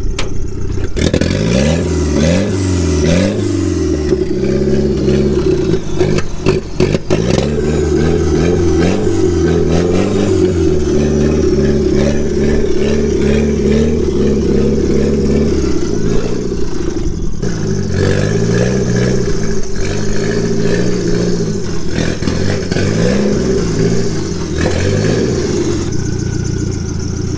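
Nissan SR20DET turbocharged four-cylinder engine running and being revved up and down again and again.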